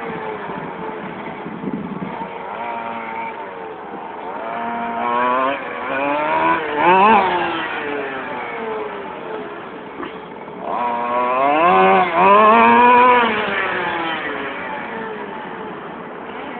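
Small engine of a radio-controlled model car revving up and down as the car drives, in rising and falling whines. It is loudest about seven seconds in and again around twelve to thirteen seconds.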